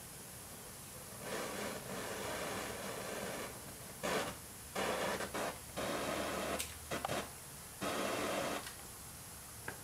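Gasoline-vapor flame burning at the end of a torch tube: a rushing hiss that comes and goes in several stretches of about a second each.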